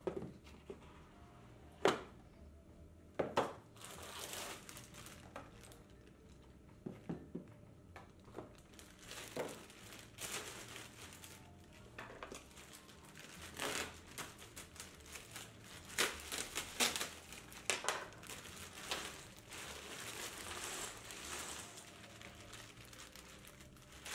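Plastic bag of cardboard jigsaw puzzle pieces crinkling as it is handled, opened and emptied, with the pieces spilling onto a table; a couple of sharp knocks near the start as the puzzle box is opened.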